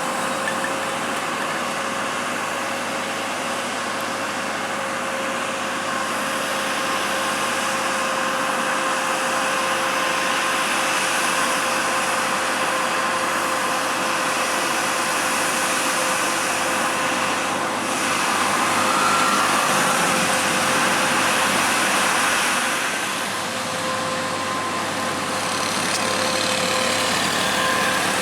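Heavy truck's diesel engine labouring steadily up a steep grade under a heavy load, with a steady whine running through it; it grows louder about two-thirds of the way through, then eases briefly.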